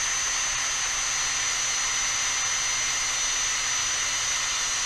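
Cordless drill running steadily at full speed, a high, even motor whine.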